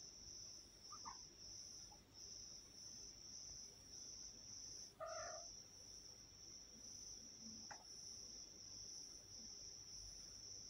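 Crickets chirping steadily, about two chirps a second. One short meow comes from the cat about halfway through, with fainter brief chirps before and after.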